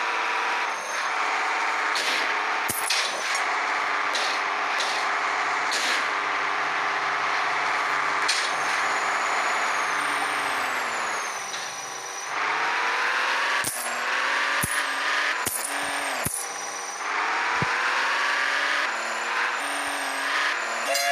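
Truck-like engine sound running steadily. Its pitch drops about halfway through and then climbs twice, as if revving, and sharp clicks and knocks are scattered throughout.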